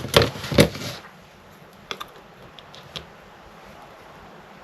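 A few sharp clicks and knocks in the first second, then a few faint scattered ticks: small hand tools working on and handling the plastic parts of a 3D printer's extruder assembly.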